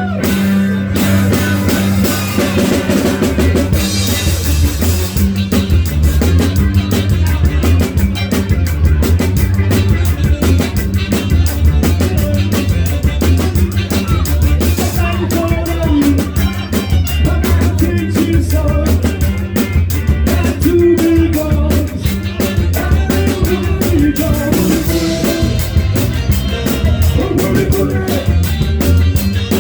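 Live band playing a soul song: drum kit loud and close, with bass and electric guitar underneath and a steady beat.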